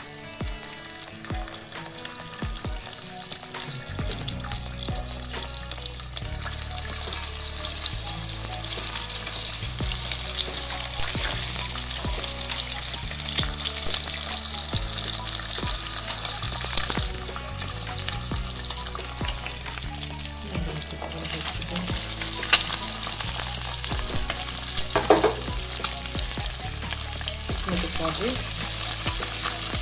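Food sizzling as it sautés in a pan, stirred with a utensil that clicks and scrapes against the pan. The sizzle grows louder a few seconds in. Soft background music runs underneath.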